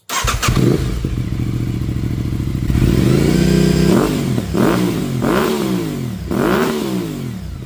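2024 Aprilia RS 660's parallel-twin engine on a cold start, through its SC-Project stock exhaust with the dB killer baffle removed. It catches at once and settles to idle. About three seconds in comes one longer rev, then three short throttle blips.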